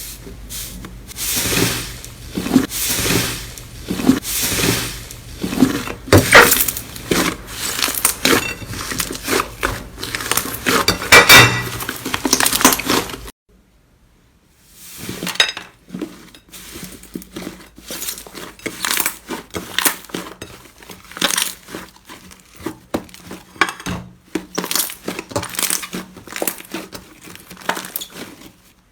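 Slime being squeezed and kneaded by hand, making dense, irregular sticky clicks, crackles and pops. The sound breaks off for about a second roughly 13 seconds in, then goes on with another handful of slime.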